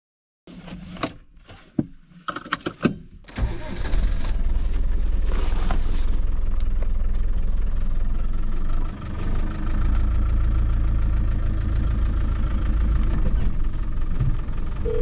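A 1997 Land Rover Defender 110's engine, heard from inside the cab while it drives along a dirt track. A few knocks and clatters come first, then from about three seconds in the engine runs with a steady low rumble, with a brief dip near nine seconds.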